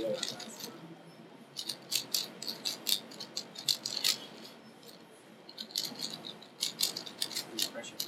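Plastic 3x3 Rubik's cube being speedsolved: its layers click and clatter in quick bursts of turns, with a short lull about halfway through.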